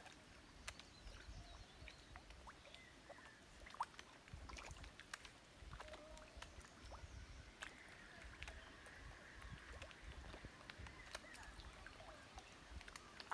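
Faint pond water with scattered small clicks and splashes over a low rumble.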